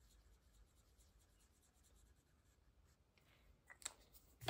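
Faint scratching of a marker pen colouring in small printed shapes on a paper tracker sheet, with a couple of soft taps near the end.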